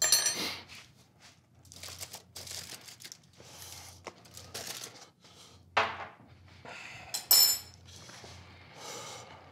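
Kitchen handling sounds: clinks of metal utensils, glass and ceramic dishes, with a loud ringing clink right at the start and another about seven seconds in, and softer rustling of aluminium foil between.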